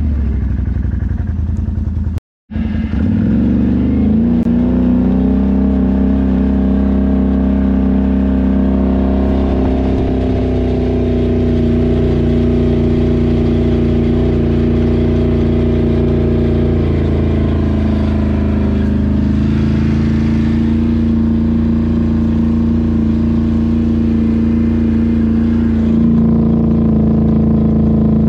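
Loud motorbike engine running steadily under way, with one short dropout about two seconds in and a slight settle to a lower pitch a little past halfway.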